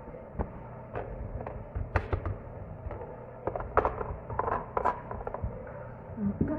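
Scattered light clinks and knocks of kitchenware: a metal tea strainer and a ceramic lid handled on and set onto a ceramic teapot, a dozen or so short taps spread over several seconds.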